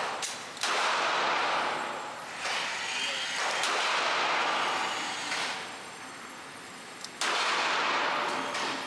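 Handgun shots: two clear shots, under a second in and about seven seconds in, each a sudden report with a long dying tail. Louder, slower-rising noise comes between them.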